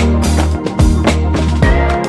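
Background music with a steady drum beat over bass notes.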